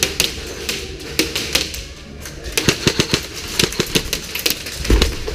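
Airsoft guns firing single shots in an irregular rapid string, several sharp cracks a second, the firing thickening from about halfway in. A heavier thump comes near the end.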